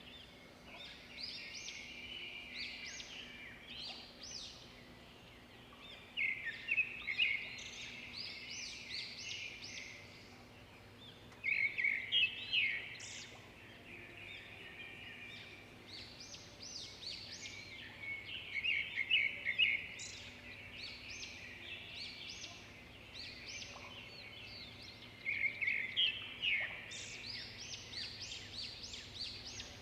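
Songbirds singing: a chorus of chirps and trills, with a louder song phrase coming again every six or seven seconds.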